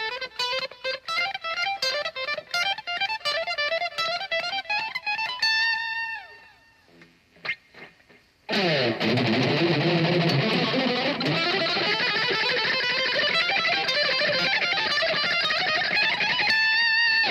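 Electric guitar played with machine-gun picking: fast alternate-picked runs of rapid notes climbing in pitch, ending about six seconds in on a held note that slides down. After a short pause with a couple of small clicks, a dense stretch of very fast picked notes runs for about eight seconds and ends on a held note.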